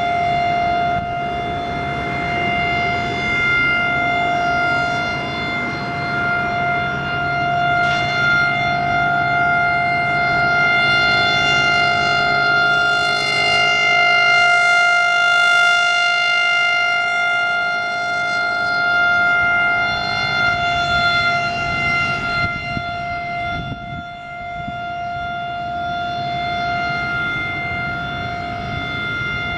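Federal Signal Thunderbolt 1000 outdoor warning siren sounding its steady Alert signal: one held pitch with strong overtones. It grows louder toward the middle and drops back somewhat about three-quarters of the way through.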